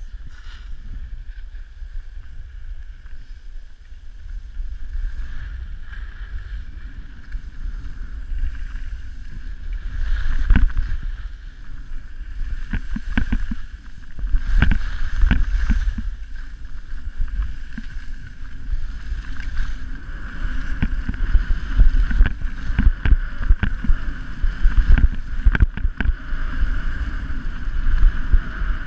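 Skis sliding and scraping on packed snow, a steady hiss, under low wind rumble on a GoPro's microphone during a downhill run. Sharp knocks and clatters from the skis over bumps come about ten seconds in and grow more frequent and louder through the second half.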